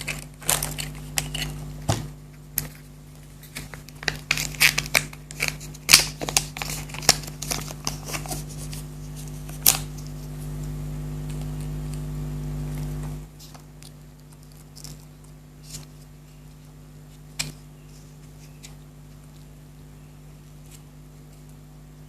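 Chocolate wrapper crinkling and tearing in quick, sharp crackles for about the first ten seconds, then only a few scattered clicks. A low steady hum underneath cuts off suddenly about 13 seconds in.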